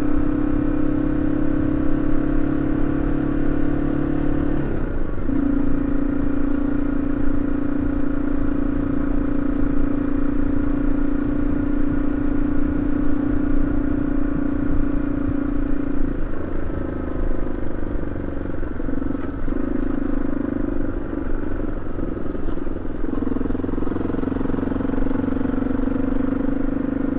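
Yamaha XT225 Serow's air-cooled single-cylinder four-stroke engine running steadily under way, with wind rumble. The engine note breaks and shifts pitch about five seconds in, wavers a few times past the middle, then settles at a slightly higher pitch near the end.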